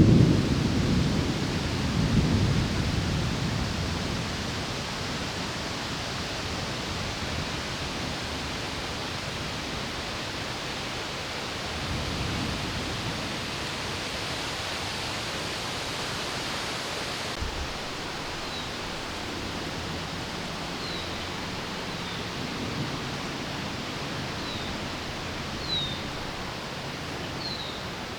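Thunder rumbling and dying away over the first few seconds, then the steady hiss of the wind and rain of a thunderstorm. In the last third there are several short, high, falling chirps.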